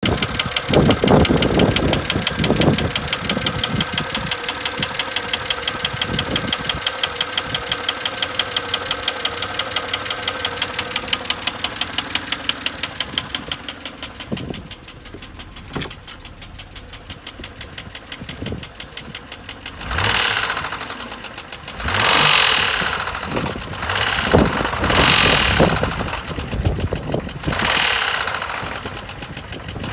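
2007 BMW X3's N52 straight-six engine running with a fast, steady knock that the owner suspects is rod knock. About halfway through the sound drops much quieter, and several loud surges follow in the last ten seconds.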